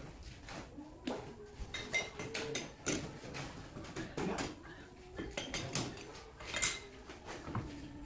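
Steel tools and parts clinking and clanking at a metal lathe as the four-jaw chuck is worked with its chuck key and the slotting attachment's parts are handled: irregular sharp metallic knocks, several a second.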